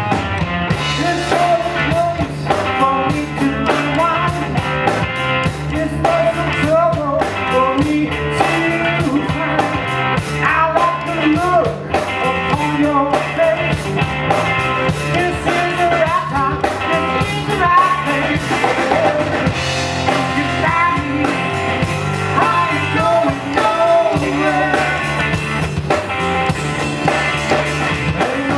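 Blues band playing an original jam: drum kit and bass keeping a repeating groove while a bending melodic lead line runs over it.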